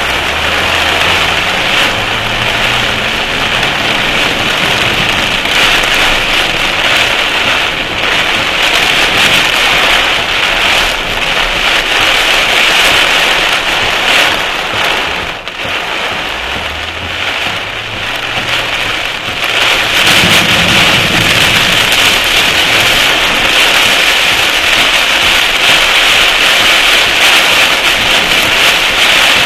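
Heavy rain pouring down, a loud steady hiss. Twice, near the start and again about halfway through, a low vehicle engine sound rises in pitch in steps beneath the rain.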